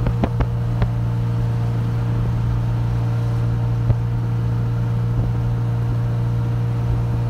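Steady low engine and road drone from inside a car cruising at an even speed, with no revving. A few light clicks come in the first second, and a single tick about four seconds in.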